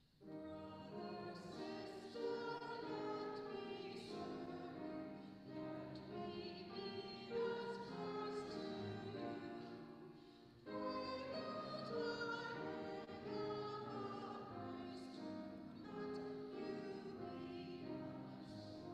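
Solo singer with piano accompaniment performing a slow classical-style sacred song. A new phrase begins about eleven seconds in.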